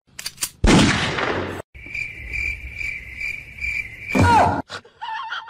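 Cricket chirping: a steady high trill pulsing about twice a second, between two loud rushes of noise, one about half a second in and one near the end.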